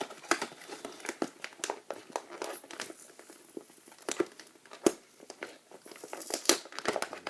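Plastic and cardboard toy packaging being handled and opened: irregular crinkling and crackling with scattered sharp clicks.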